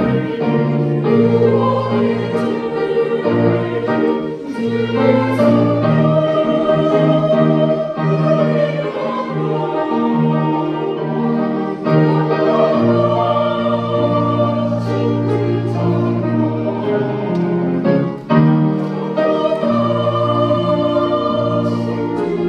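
Church choir singing a hymn-style anthem in parts with instrumental accompaniment.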